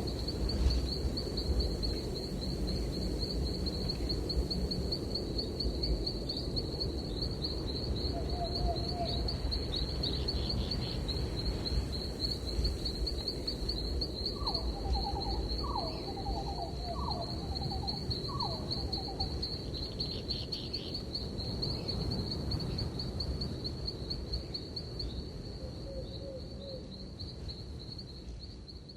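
An insect trilling steadily in a fast, even, high-pitched pulse over a low rush of breeze. A bird gives a few short notes now and then, with a quick run of sharp whistled notes about halfway through. The sound fades out near the end.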